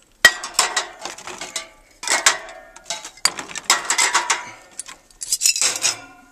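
Metal aerosol spray paint cans clinking and knocking against each other as they are shuffled and pushed into place, in four bursts of clatter.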